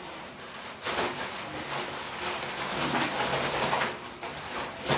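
A black fabric bag rustling as it is handled and rummaged through, with a sharper knock about a second in and a short click near the end.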